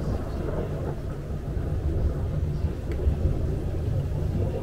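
Distant thunder rolling as a low, steady rumble that swells and eases without a sharp crack.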